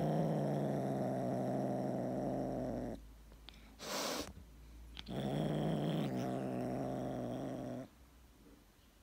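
A tabby kitten gnawing on a treat stick growls low and steadily for about three seconds. It breaks off with a short hissing breath about four seconds in, then growls again for about three seconds.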